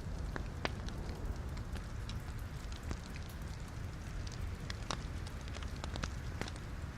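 Wood logs burning in a fireplace: a steady low rumble of flame with irregular sharp crackles and pops scattered through, a few louder snaps among them.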